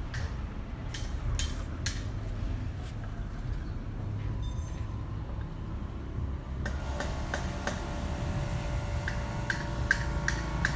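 Urban neighbourhood ambience: a steady low rumble with scattered clicks and knocks. About two-thirds of the way through, a cluster of ringing tones with light regular ticking joins in.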